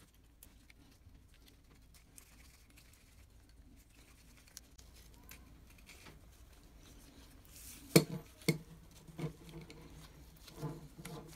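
Small metallic clicks and knocks as the steel parts of an E.R. Varney A956 Yankee-style ratchet screwdriver are handled and fitted together by hand. Faint at first, then two sharp clicks about eight seconds in, half a second apart, followed by a few lighter knocks near the end.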